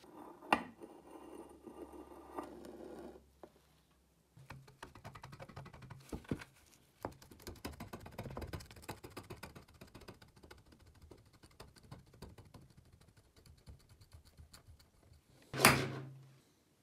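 Rusty steel hacksaw frame being handled and taken apart by hand: scraping, small irregular metal clicks and rattles as the handle and tensioner parts are worked loose. There is a sharp knock about half a second in and a loud metal clank near the end.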